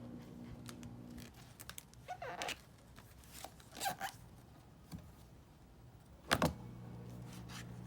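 Scattered rustling and clicking handling noises with one loud knock about six seconds in, over a steady hum that drops out about a second in and comes back right after the knock.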